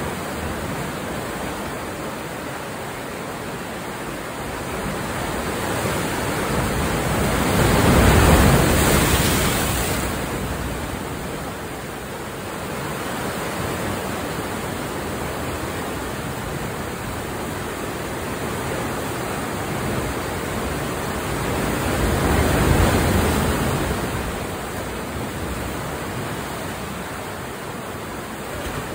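Ocean surf surging into a lava-rock sea cave: a steady wash of churning water that swells twice, about a third of the way in and again about three-quarters through, as bigger waves roll in.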